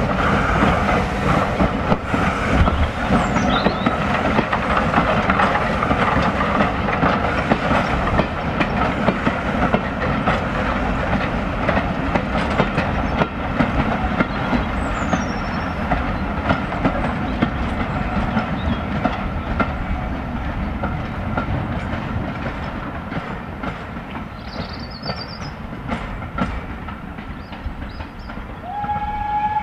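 Steam-hauled passenger train running past and drawing away: the coaches' wheels clatter over the rail joints, and the sound slowly fades. Birds chirp briefly a few times, and a steady steam whistle starts just before the end.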